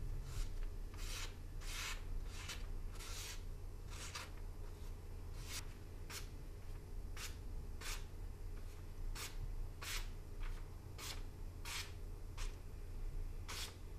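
A hand-forged knife with a 1075 carbon-steel edge slicing through a sheet of paper in a paper-cutting sharpness test. About twenty short, irregularly spaced slicing strokes, each a brief hiss, over a steady low hum.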